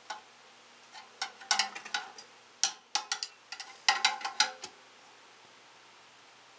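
Irregular light metallic clicks and taps as the compression nut on a copper line is fitted and threaded by hand onto a water-pump pressure switch, lasting about four seconds.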